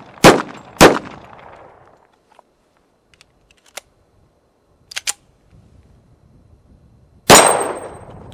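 Two shots from a Kimber .45 ACP 1911 pistol, about half a second apart, just after the start. A few light metallic clicks of the pistol being handled follow, then one more pistol shot near the end with a thin high ringing after it.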